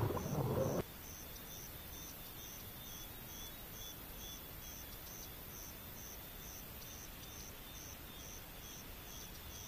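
Insects chirping in a faint, steady, even pulse of about three chirps a second, over a field recording's background hiss. A brief, loud, rough burst of noise comes in the first second.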